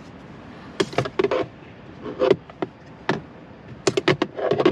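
Irregular light taps and clicks in a few quick clusters: hands handling a phone and pressing buttons on a car's centre console, heard inside the cabin.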